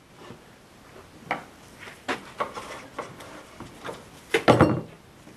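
Scattered clicks, knocks and rubbing of hands handling parts, with a louder knock about four and a half seconds in; no engine cranking is heard.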